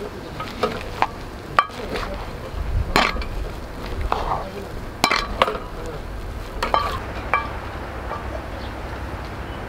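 Rice paddle stirring and turning freshly cooked bamboo-shoot rice in a pot, with irregular sharp clacks and scrapes as it knocks against the pot's side. The clacks die out a couple of seconds before the end.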